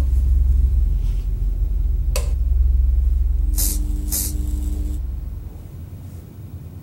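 Horror-film sound design: a deep rumbling drone with a sharp click about two seconds in, then two short hissing bursts over a faint hum; the drone fades out near the end.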